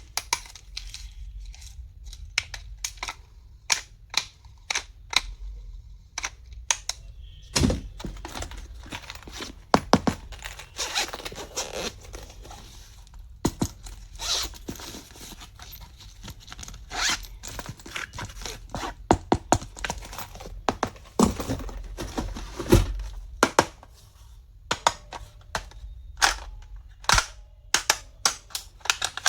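Hands unpacking and handling plastic stationery: packaging crinkling and tearing, with many sharp clicks and taps of small plastic parts.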